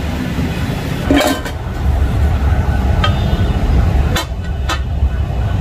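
Metal chopping spatulas clanking against a flat iron griddle: one loud clank about a second in, then three sharper, ringing strikes later on. A steady low rumble runs under it throughout.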